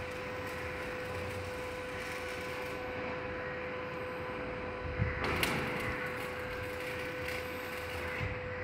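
Steady machinery hum with a constant pitched tone running throughout, with a sharp knock about five seconds in and a brief clatter just after.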